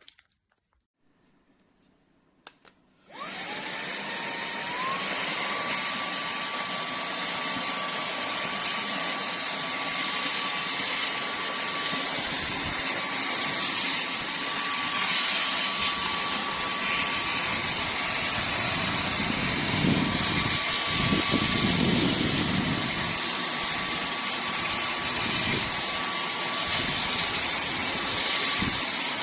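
TANYO cordless handheld vacuum cleaner switched on about three seconds in. Its motor whine rises as it spins up, steps up in pitch once shortly after, then runs steadily with a loud rushing of air.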